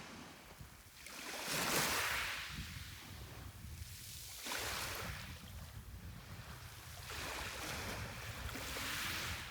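Sea waves breaking and washing on the shore, three surges a few seconds apart, the first, about a second in, the loudest, over a steady low rumble.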